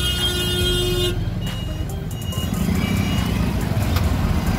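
A vehicle horn gives one steady honk that stops about a second in, over the low rumble of engines idling in a traffic jam.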